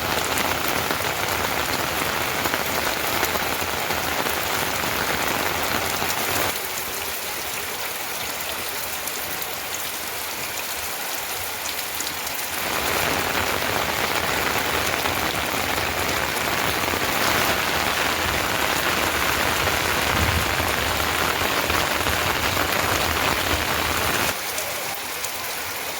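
Rain falling steadily, a dense even hiss. It turns softer about six seconds in, grows louder again about halfway through, and softens once more near the end.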